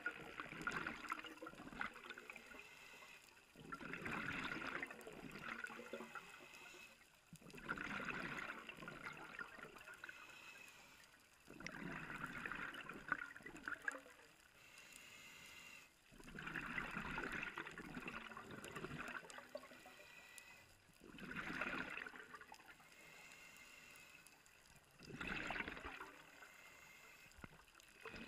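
Scuba diver breathing through a regulator underwater, picked up through the GoPro housing: a burst of bubbling exhaust about every four seconds, each lasting a second or two, with quieter hissing stretches between.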